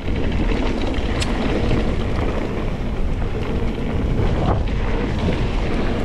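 Wind rushing over an action camera's microphone during a fast mountain bike descent, with the steady rumble of tyres on dirt and scattered clicks and knocks of the bike clattering over rough trail.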